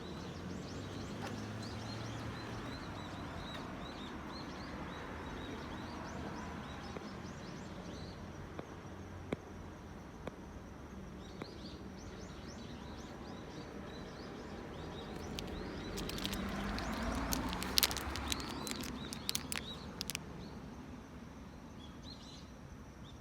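Outdoor ambience: a steady background hiss with small birds chirping now and then, swelling louder for a few seconds about two-thirds of the way through, with a cluster of sharp clicks.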